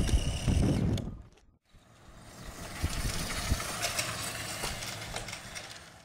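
Electric motor whine and tyre noise of an HPI RS4 Mini Pro radio-controlled car driving on tarmac, cutting out abruptly about a second and a half in. After a short gap a fainter high whine with hiss fades in and dies away again.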